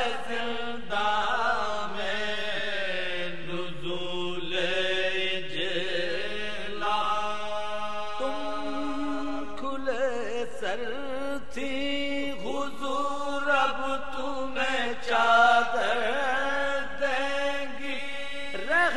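Male voice reciting an Urdu marsiya in soz style: unaccompanied melodic chanting with long, wavering held notes and slow glides. A steady lower note sounds underneath and steps up once about eight seconds in.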